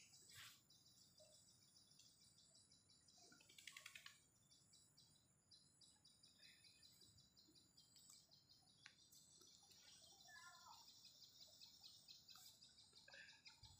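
Faint garden ambience: a steady high insect buzz with scattered bird chirps, the loudest a quick rattling trill about four seconds in.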